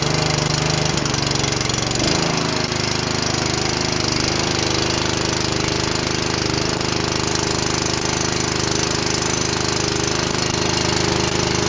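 Honda GX engine driving a sprayer pump, running steadily just after a choked cold start. Its pitch shifts about two seconds in, then holds steady.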